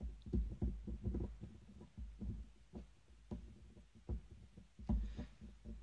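Soft, irregular taps of a felt-tip marker dotting stitch-hole marks onto leather along the edge of a plastic template, several taps a second.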